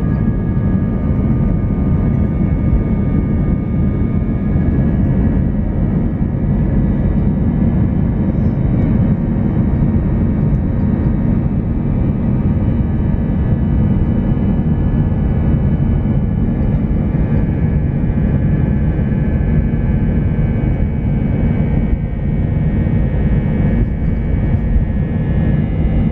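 Airbus A320 jet engines at takeoff thrust during the takeoff roll, heard from inside the cabin: a steady low rumble with several steady whining tones above it.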